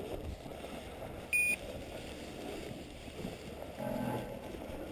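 A single short, high-pitched electronic beep about a second and a half in, over faint outdoor wind and field noise.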